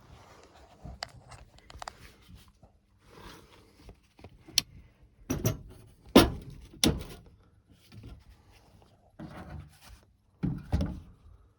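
Irregular knocks, thunks and light rattles of hard parts being handled and shifted while working on an air conditioner's indoor unit, about a dozen strikes in all, the loudest a cluster about five to seven seconds in and another pair near the end.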